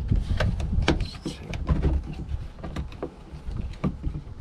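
Hands working a jet ski's plastic coolant expansion bottle and rubber hoses: a run of irregular clicks, knocks and rubbing over a low rumble.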